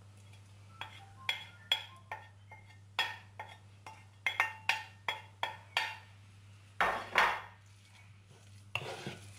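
A wooden spatula tapping and scraping against a plate, about a dozen and a half sharp knocks, as chopped spinach is knocked off it into a pan. About seven seconds in come two louder scrapes as the spinach is stirred into the béchamel in the pan.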